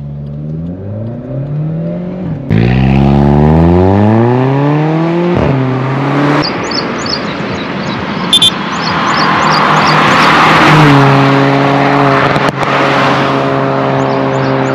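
Volkswagen Polo GT TSI with an aftermarket Remus exhaust accelerating hard, its engine note climbing through the gears with quick upshifts of the DSG dual-clutch gearbox in manual mode about two and a half and five and a half seconds in. The car then rushes past at speed with loud wind and tyre noise, and a steadier engine note follows near the end.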